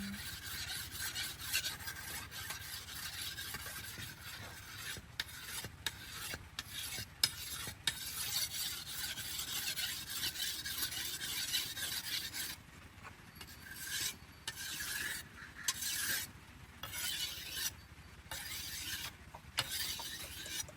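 Rasping scrape of a steel knife blade being worked against an abrasive, steady at first and then in separate strokes of about a second each with short gaps in the second half.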